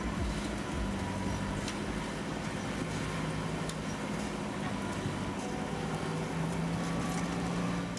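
Street ambience dominated by a motor vehicle's engine running steadily, with road noise and a low, even hum.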